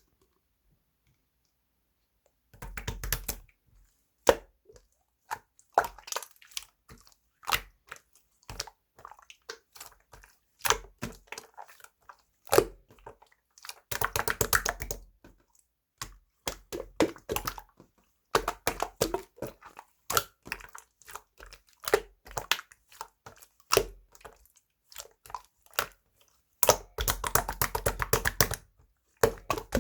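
Close crunching and crackling in irregular bursts of many sharp clicks, starting about two and a half seconds in after a quiet start.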